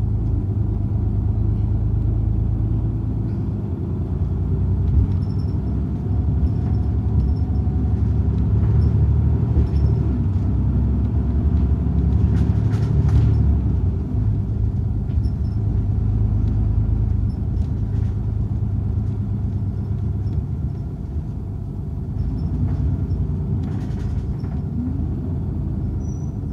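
Osaka City Bus driving along a street, heard from inside the cabin: a steady low engine and road rumble, with a few short clicks about halfway through and again near the end.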